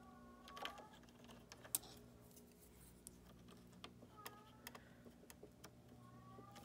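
Faint, scattered light clicks and taps of fingers and fingernails handling the plastic thread-cutter blade assembly of a Designer SE sewing machine, over a low steady hum.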